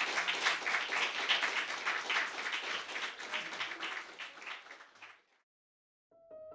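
Audience applauding, the clapping tailing off about five seconds in. After a brief silence, piano music starts near the end.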